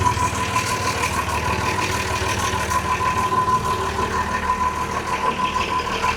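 Perkins marine diesel engine of a sailboat idling steadily just after starting, with a steady high whine running over the engine note.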